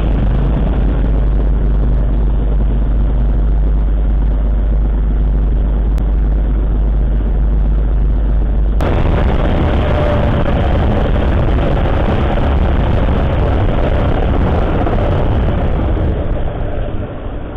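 Motorcycle on the move, heard raw from a rider-mounted camera: steady engine rumble under heavy wind and road noise. About nine seconds in the sound shifts, with less low rumble and more rushing wind.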